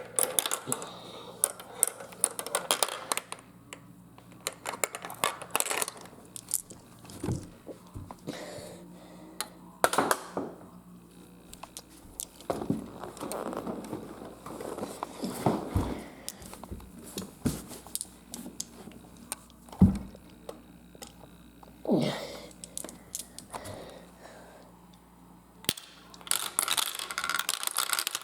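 Hard plastic marble run pieces and marbles clicking and clattering in irregular bursts, with a few louder knocks, the loudest about twenty seconds in.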